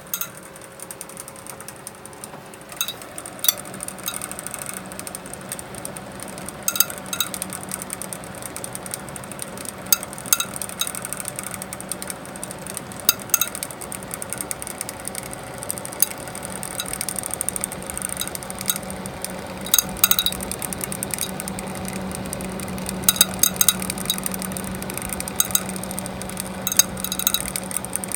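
A PC case fan in a server runs with a steady whir, broken by sharp, irregular clicks and ticks that come in clusters every second or so. The fan is wobbling on its axis.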